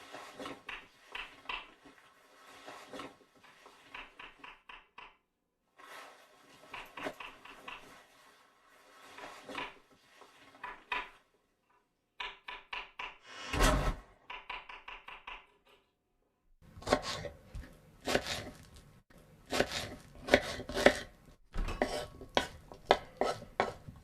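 Kitchen sounds: a knife chopping on a cutting board in short runs of quick, even strokes, broken by pauses, with a heavier knock about halfway through and denser, louder clattering of dishes toward the end.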